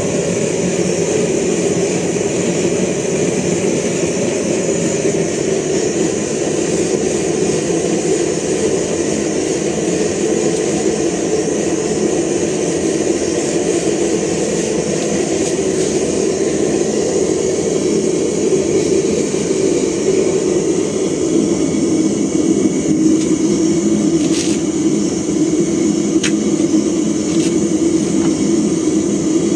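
Blower-fed gas forge burner running: a steady, unbroken rush of flame and air.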